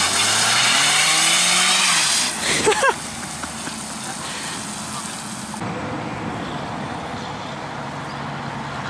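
Car doing a burnout through floodwater: the engine revs up for about two seconds under a loud rushing hiss of spray. It then settles back to a steadier, quieter running rumble.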